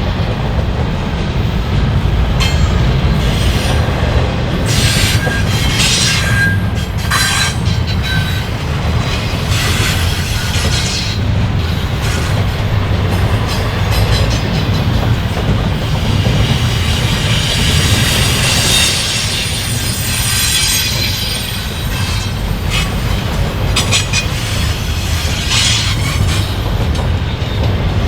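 Freight cars of a CN train rolling past: a steady low rumble of steel wheels on rail, with repeated clanks and clicks and intermittent high-pitched wheel squeal.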